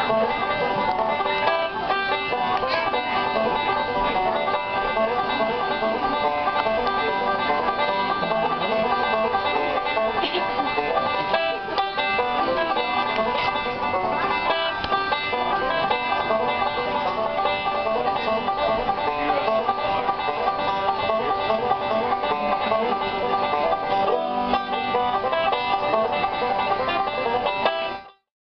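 Instrumental music playing at a steady level, stopping abruptly near the end.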